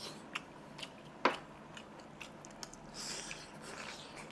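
Close-up eating sounds: chewing and biting on pieces of mutton curry eaten by hand, with scattered short clicks and one sharper click about a second in.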